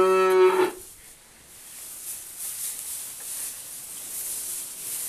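A young cow moos once, a long steady bawl that cuts off about a second in. Then only a faint hiss remains, with a weak low call near the end.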